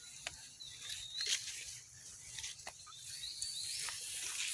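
Leafy undergrowth rustling with a few sharp snaps and crackles as a long-tailed macaque walks through it, over a steady high outdoor hiss with faint thin chirps.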